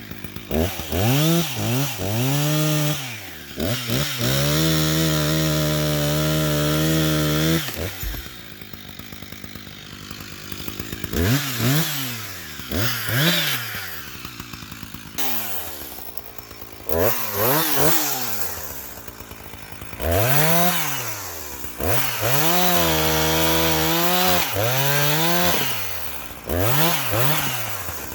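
Husqvarna 359 two-stroke chainsaw revved in quick throttle blips and twice held at high revs for several seconds while cutting up a felled tree, dropping back to idle in between.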